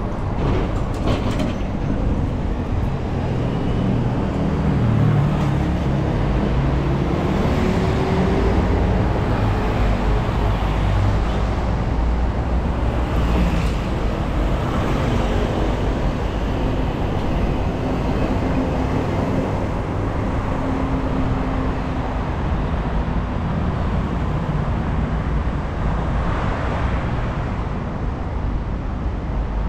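City road traffic: a steady mix of engine and tyre noise from passing vehicles, with the pitched hum of engines rising and falling as they go by.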